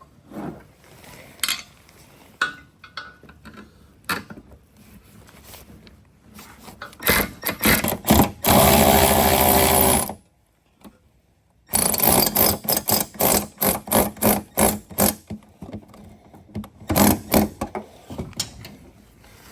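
Socket ratchet clicking in quick runs as the bolts and screws of a truck headlight housing are tightened, with scattered single clicks and knocks. Near the middle a louder, steady mechanical stretch of about a second and a half cuts off abruptly.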